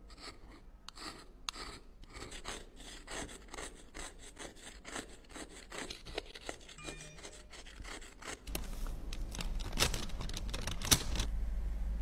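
Repeated quick scraping and rubbing strokes of a small tool working a makeup product, about five strokes a second, with a few sharper clicks near the end.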